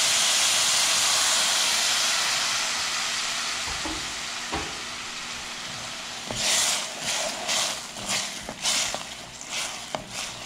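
Hot water hitting vegetables frying in oil and butter in a stainless steel pot, hissing and sizzling loudly, the sizzle dying down over the first five seconds. Then a spoon stirring in the pot, a run of short scraping strokes about two a second.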